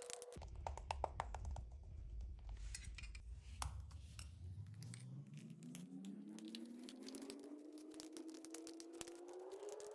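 Slime being worked and mixed, with many small sticky clicks and pops. Under it a low hum gives way, about halfway through, to a steady tone that slowly rises in pitch.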